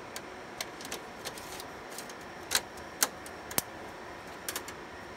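Clicks and snaps of an SSD drive caddy being pushed into a rear drive bay of a Dell PowerEdge R720XD server and latched, with three sharper clicks about half a second apart a little past halfway.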